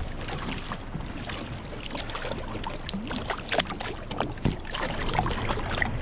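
Water splashing and sloshing against a small boat's hull as a hooked fish thrashes at the surface and is grabbed by hand, with many irregular small splashes over a steady lapping of water.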